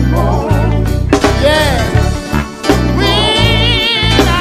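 Live gospel band: a man singing, with a wavering held note near the end, over electric bass and drums.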